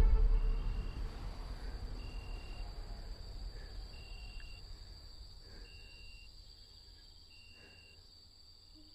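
Night-time crickets: a steady high insect hum with a cricket's short, even chirp repeating about every one and a half to two seconds. A low rumble fades away under it over the first few seconds.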